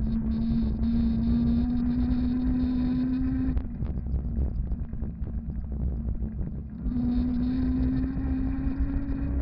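Electric fatbike's 250 W, 48 V electric motor whining under power, its pitch rising slowly as the bike speeds up. The whine cuts out about three and a half seconds in while the bike coasts, and comes back near seven seconds, rising again, over a steady low rumble.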